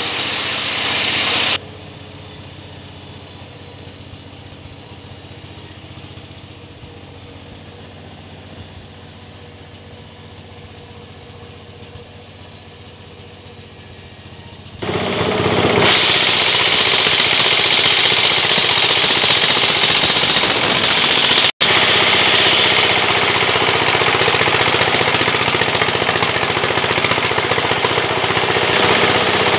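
Vertical band sawmill: the sound of a cut stops about a second and a half in, and the saw runs on, much quieter and steady. About halfway through the blade bites into a log again, and a loud, hissing cutting noise carries on to the end.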